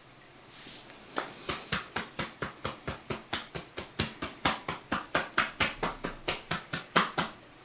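A therapist's hands striking the body in quick massage percussion, a steady run of sharp slaps about four a second. It starts about a second in and stops shortly before the end.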